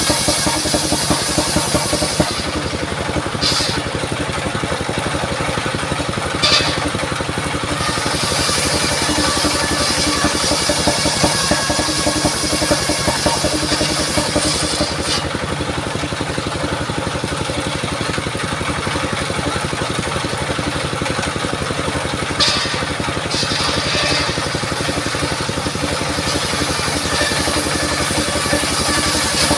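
Engine of a mobile circular-saw sawmill running steadily at an even speed while it saws mahogany logs, with a few short high-pitched hisses along the way.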